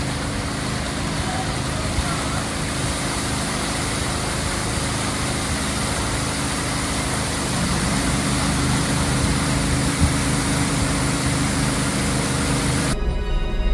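An engine running steadily under a constant hiss, somewhat louder from about eight seconds in, cutting off suddenly near the end.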